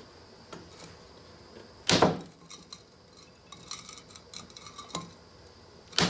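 A hammer striking a wooden block fitted into a Cockshutt 40 tractor cylinder sleeve, trying to drive out a piston seized in it. Two heavy blows about four seconds apart, with lighter knocks and clinks between them.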